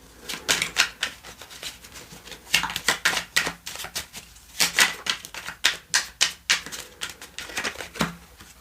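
Tarot cards being shuffled and handled: irregular crisp clicks and flicks of card stock, coming in short clusters.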